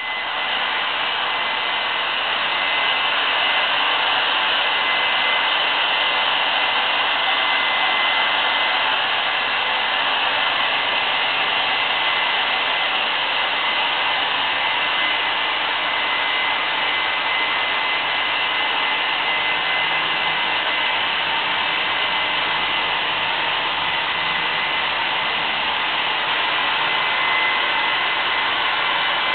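Hand-held hair dryer running steadily while blow-drying a dog's coat, a constant rush of air with a thin steady whine in it.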